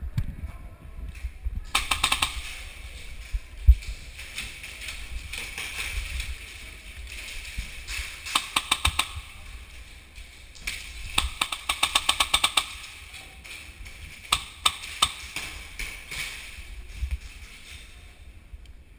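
Airsoft guns firing in several short bursts of rapid, evenly spaced shots, with the longest burst near the middle.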